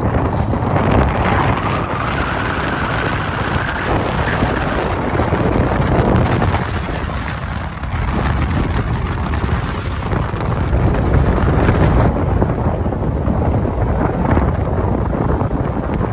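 Strong wind buffeting the microphone: a loud, deep rushing noise that rises and falls with the gusts.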